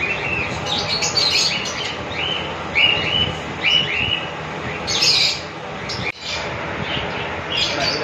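Alexandrine parakeets calling while they feed each other beak to beak: a quick series of short, repeated chirps, then a louder, harsher call about five seconds in and more chirps near the end.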